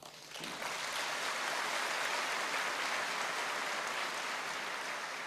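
Audience applauding, rising about half a second in, holding steady, then fading away near the end.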